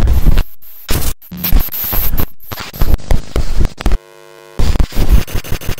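Loud, harsh distorted static noise, chopped by repeated sudden dropouts, with a short buzzing tone about four seconds in before the noise returns.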